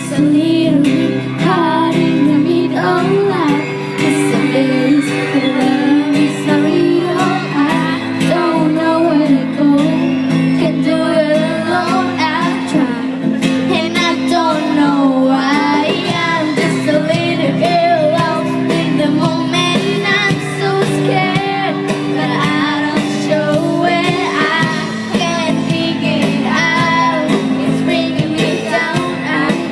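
Live band performing a pop song: a female lead voice singing over guitar accompaniment.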